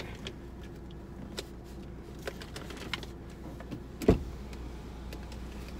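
Grocery bags being rummaged through inside a parked car: soft rustles and small knocks over a steady low hum in the cabin, with one sharp thump about four seconds in.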